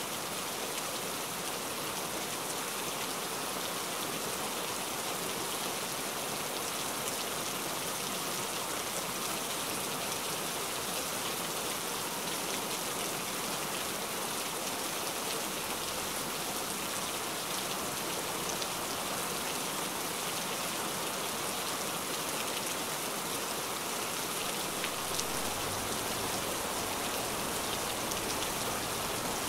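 Heavy rain falling steadily: a dense, even hiss of many drops hitting surfaces.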